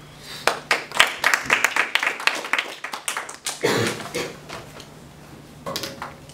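A small group of people clapping for about three seconds, then dying away.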